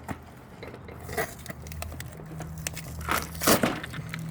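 A cardboard product box being handled and opened: crackling and scraping with scattered small clicks, the loudest rustle a little past three seconds in.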